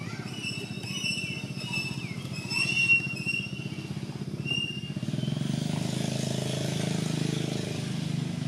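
A motor vehicle engine running with a steady low throb, growing louder from about five seconds in as a hiss joins it. Over the first half come short, high-pitched chirping calls, the loudest about three seconds in.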